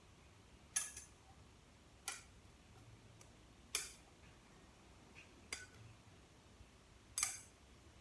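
Five short, light metallic clicks, spaced a second or more apart: the transmission's reverse clutch pack plates and parts clinking together as they are handled for inspection.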